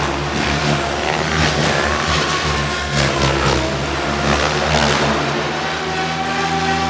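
RC helicopter's motor and rotor blades whining during 3D aerobatic flight, with repeated swooshing surges as the blades change pitch through the manoeuvres. Music comes in near the end.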